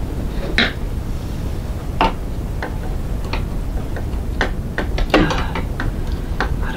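Steel needle plate of a Janome sewing machine being pressed into place and screwed down: a string of light, irregular metal clicks and taps, over a steady low rumble.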